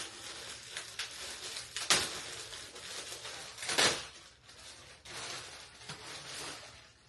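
Rustling and crinkling of shipping packaging being handled as a parcel is unwrapped, with two louder crackles about two and four seconds in.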